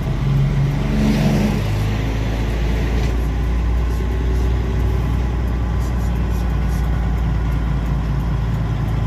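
Heavy truck's diesel engine running steadily at low speed, heard from inside the cab.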